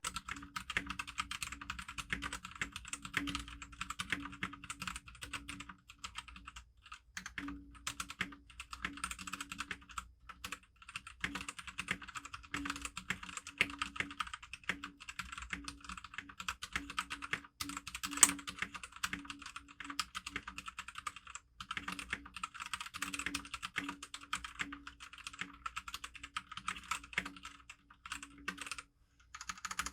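Typing on a Royal Kludge RK68 Plus mechanical keyboard with tactile brown switches: a rapid, very quiet run of key clacks, broken by a few short pauses.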